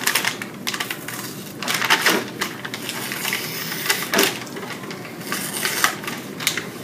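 A stiff brown paper sheet rustling and crinkling as it is handled and folded by hand: an irregular run of crackles with louder flurries about two and four seconds in.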